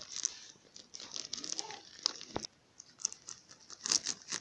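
Scissors snipping through a clear plastic packaging bag, the thin plastic crinkling with irregular crackles and snips.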